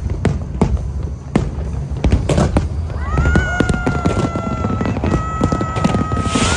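Aerial fireworks shells bursting in quick, irregular succession. About halfway in, a steady, high whistling tone joins and holds, shifting pitch slightly twice.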